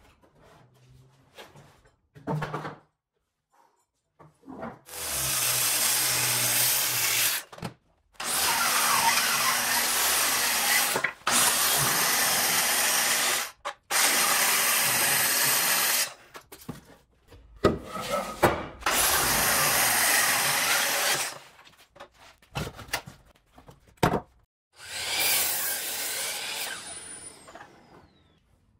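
Power saws cutting thick hardwood in several long, even bursts with short pauses and knocks between them. A Festool plunge track saw runs along its guide rail through a slab, and near the end a sliding compound miter saw crosscuts a block.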